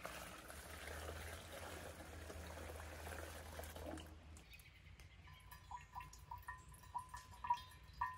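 Water dripping from a gravity water filter's outlet into a stainless insulated bottle, about three drops a second, each drop ringing at the same pitch. It starts about halfway through, after a few seconds of steady hiss.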